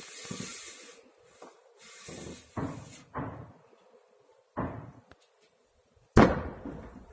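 Several artillery explosions booming one after another, each with a rolling echo. The loudest is about six seconds in. A rushing hiss fills the first three seconds.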